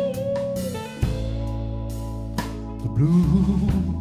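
Live blues band playing: electric guitar through a Divided By 13 amplifier, bass, keyboard and drum kit, with a guitar note bending and wavering in the first second and cymbal and drum hits throughout.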